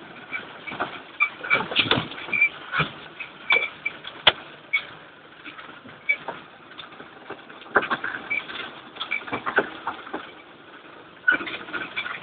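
Irregular knocks, clicks and rattles with short squeaks from a Nissan Patrol's body and cabin as it lurches over rough snowy ground, heard through a low-quality phone microphone.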